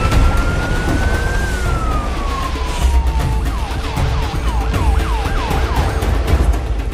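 Ambulance siren. A slow wail rises and then falls over about three seconds, then it switches to a fast yelp of quick sweeps, about three a second, that stops near the end. A steady low rumble runs underneath.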